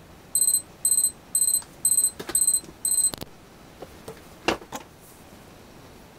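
Digital kitchen timer's alarm going off: six short, high electronic beeps about half a second apart, followed by a few sharp clicks and knocks as it is handled and stopped.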